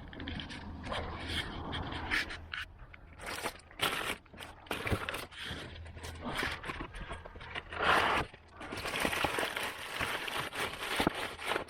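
Hands working car air-filter parts: irregular scraping, plastic clicks and rustling as the filter and its housing are handled, with the loudest scraping about eight seconds in and again near the end.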